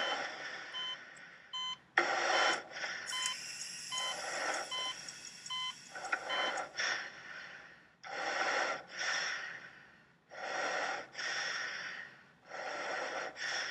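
Hospital heart monitor beeping about once every 0.8 s over heavy, labored breathing of a patient in an oxygen mask. The beeping stops about six and a half seconds in, leaving three long breaths.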